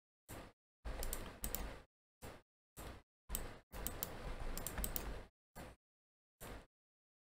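Computer keyboard and mouse clicks in short, chopped bursts. Each burst cuts off abruptly into dead silence, with the busiest clicking about a second in and again from about three to five seconds in.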